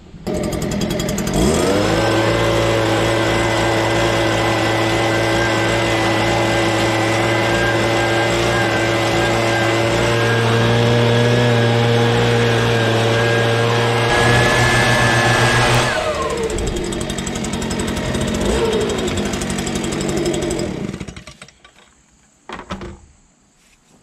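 Stihl handheld leaf blower starts and revs up, then runs at full throttle for about fifteen seconds blowing dust out of a skid-steer cab. It throttles down to a lower steady note for a few seconds and then shuts off.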